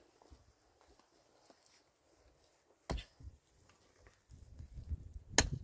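Two sharp knocks, about two and a half seconds apart, over faint background noise; a low rumble sets in near the end.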